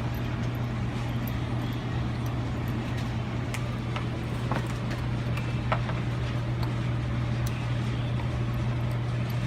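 Scattered light clinks and knocks as pieces of metal are handled and set together, over a steady low hum.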